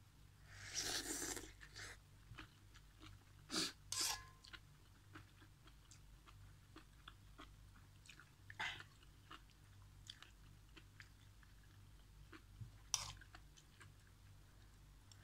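A mouthful of instant noodles slurped about a second in, then steady chewing of the noodles and vegetables with small wet clicks, broken by a few sharper clicks.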